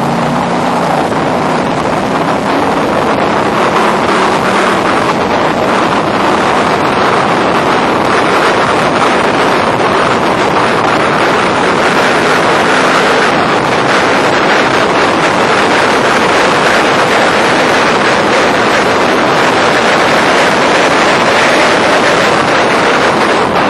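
Factory Five Racing roadster's engine running hard at race pace, heard from the open cockpit under loud, steady wind rush buffeting the microphone.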